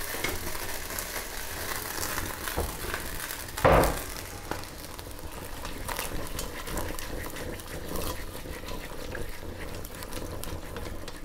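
Pigeons and lardons sizzling and crackling in hot fat in a cast-iron casserole while an Armagnac flambé burns off. There is one dull thump about four seconds in.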